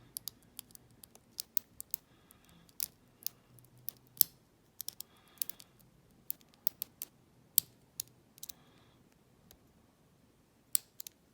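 Lock pick and tension wrench working the pins of a small Enoch pin-tumbler padlock under light tension: irregular sharp clicks, a few louder ones, and short scraping passes of the pick over the pins as they are being set.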